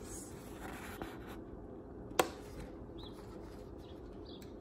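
Soft handling of a paperback picture book, with faint paper rustling in the first second or so over a steady low room hum, and one sharp click a little after two seconds in.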